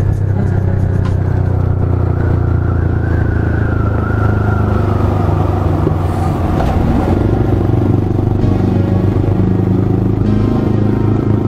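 Yamaha R15 V3 motorcycle's 155 cc single-cylinder engine running steadily while under way at an even speed.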